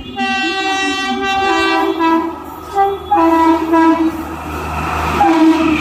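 Electric locomotive's horn sounding in several blasts as an express train approaches: a long blast of about two seconds with its pitch stepping down partway, a short toot, a blast of about a second, then a brief one near the end. Under the later blasts the low rumble of the oncoming train grows louder.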